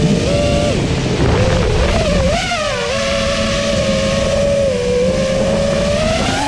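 A 6-inch FPV quadcopter's Emax 2306 2750kv brushless motors spinning Gemfan 5.1-inch props on 6S, whining at a pitch that rises and falls with the throttle and climbs sharply near the end as the pilot punches out. Wind rushes over the onboard camera's microphone underneath.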